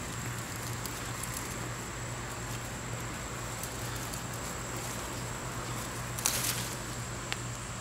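Tomato plant leaves and stems rustling softly as a hand pushes in among them, with a brief crackling burst a little over six seconds in and a single sharp click about a second later.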